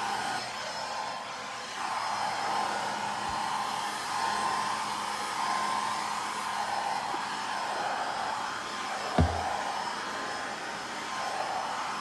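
Handheld pet grooming dryer with a slicker-brush head running on its second setting: a steady rush of air with a steady whine. A short thump about nine seconds in.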